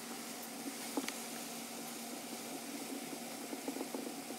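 Faint small clicks and scrapes of a screwdriver working the spring-loaded throttle stop screw on a Honda XR650R carburettor: one sharper click about a second in and a quick cluster near the end, over a steady low room hum.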